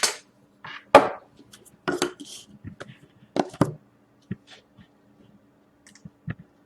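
Scattered knocks and taps of card boxes and packs being handled and set down on a table, most about a second apart, over a faint steady hum.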